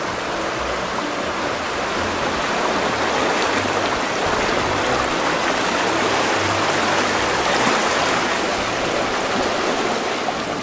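A shallow, rocky creek rushing over riffles and stones: a steady wash of running water.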